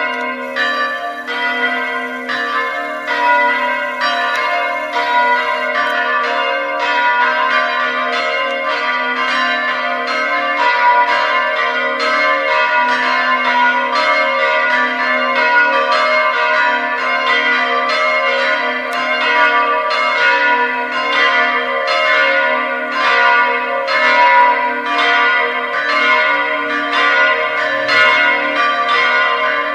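Full peal of three electrically swung church bells, tuned D4, C4 and B3 (Bizzozero 1764, Comerio 1858, De Antoni 1975), striking in a continuous overlapping stream of strokes, a few each second. A steady low hum lasts beneath the strokes.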